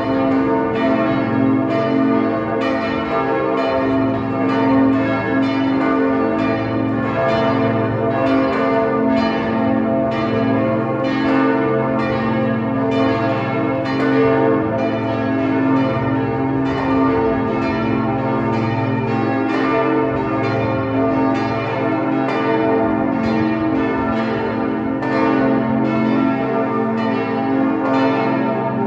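Church bells ringing in a continuous peal: several bells striking in quick succession, about two strikes a second, their tones ringing on underneath.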